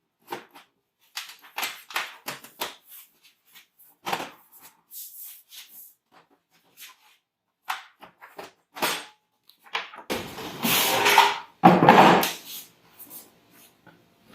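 Computer case parts being handled: a scatter of small clicks and knocks, then two loud rough scraping noises about a second long each near the end.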